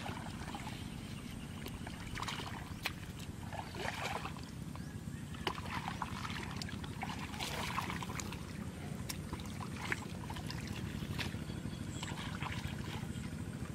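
Hands sloshing and splashing in shallow muddy water, with scattered small splashes and clicks over a steady low rumble.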